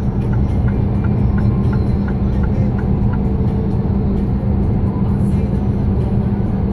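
Steady engine drone and road noise inside a vehicle cab cruising at motorway speed. A faint run of short high tones repeats about three times a second in the first few seconds.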